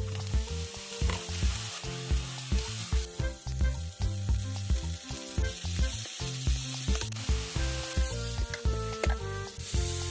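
Food sizzling in a hot frying pan, a steady hiss, under background music with a steady beat.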